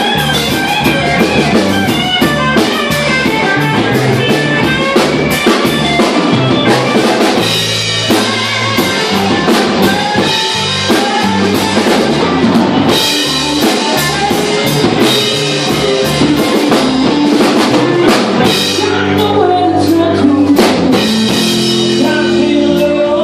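A blues band playing: a drum kit keeping a steady beat with bass drum and cymbals, under a bass line and guitar.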